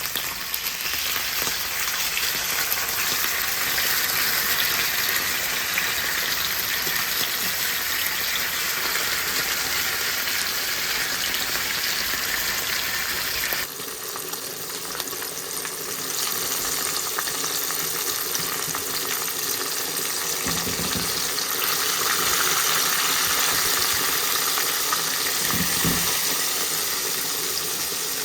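Hot cooking oil sizzling steadily in a pot as food deep-fries. The hiss changes abruptly about halfway through and carries on at a slightly lower level.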